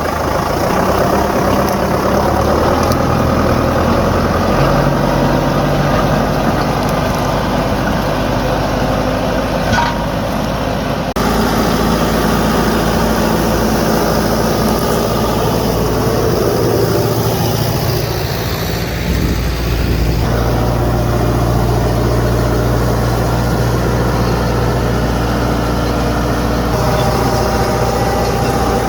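Diesel engine of a Preet 90 HP tractor running steadily while pulling a reversible plough, its note shifting a few times.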